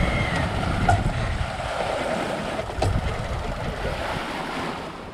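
Wind buffeting the microphone over the rush of waves and the bow wave of a sailboat under sail in choppy seas, with no engine running. Two sharp knocks, about a second in and about three seconds in.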